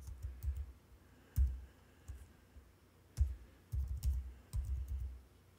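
Typing on a computer keyboard: a string of slow, irregular keystrokes, each a click with a dull thump, coming in small clusters as a short word is typed.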